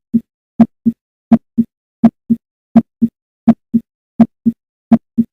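Heart sounds at the mitral auscultation area: a steady lub-dub, the first and second heart sounds in pairs at about 80 beats a minute. In each pair the first sound is the sharper and louder.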